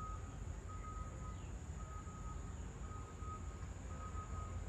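A vehicle's reversing alarm beeping about once a second at one steady pitch, over a low rumble.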